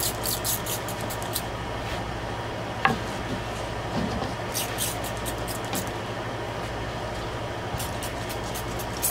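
Hand trigger spray bottle spritzing boiled linseed oil onto an oak strop board: quick hissing squirts in three bunches, at the start, about five seconds in and near the end. There is a single sharp click about three seconds in, over a steady background rumble.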